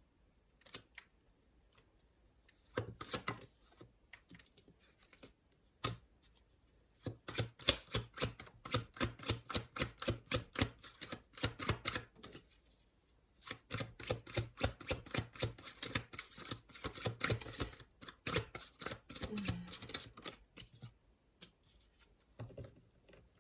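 Tarot cards being shuffled by hand: two long runs of rapid, papery card flicks, with a short rustle and a single tap before them.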